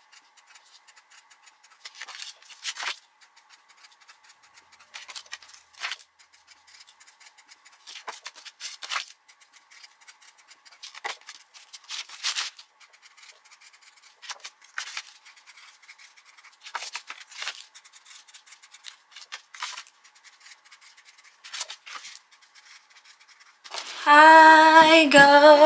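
A felt-tip marker scratching and squeaking across card stock in short, separate strokes. Near the end, a loud pitched sound with several overtones comes in.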